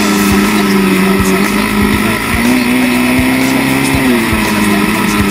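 Yamaha Raptor 660 ATV's single-cylinder four-stroke engine running hard at speed, its pitch dipping briefly twice, about two and four seconds in, as the revs ease and build again.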